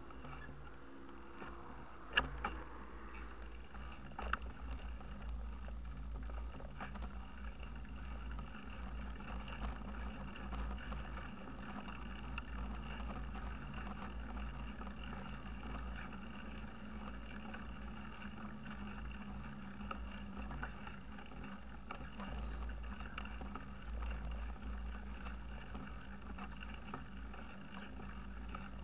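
Mountain bike rolling along a paved road: wind rumbling on the bike-mounted microphone over a steady hiss of tyres and riding noise, with two sharp knocks about two and four seconds in.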